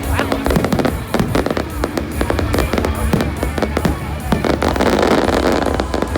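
Aerial fireworks bursting in quick succession, many sharp bangs, with a dense crackle swelling about five seconds in.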